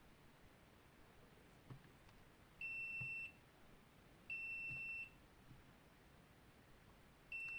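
High-pitched electronic beeps: two short beeps about a second and a half apart, then a longer steady beep near the end.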